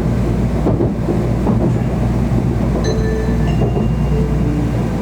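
Steady low rumble of a Shinkansen train at the station, with a chime melody of clear, steady electronic notes starting about three seconds in.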